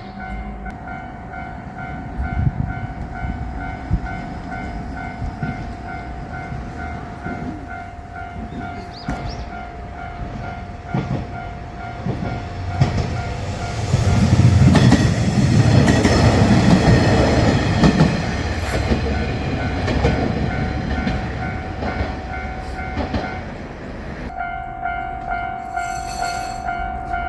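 Japanese level-crossing warning bell ringing in a steady, fast repeating pattern while a JR Shikoku KiHa 185 diesel railcar passes over the crossing. The railcar's engine and wheels build to a loud rumble, loudest about 14 to 18 seconds in, then fade away.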